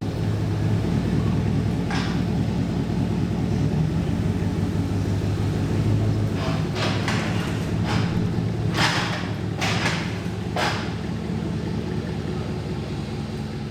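Steady low mechanical rumble of a running motor, with several short hissing bursts around the middle.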